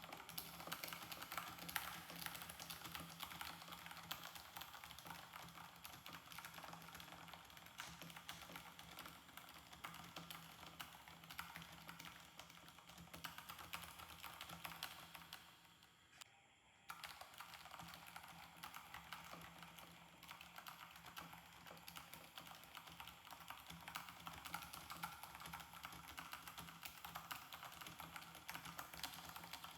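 Continuous typing on a Vissles V84 mechanical keyboard with linear VS2 switches: soft, quiet, rapid keystrokes, with a brief pause a little past halfway.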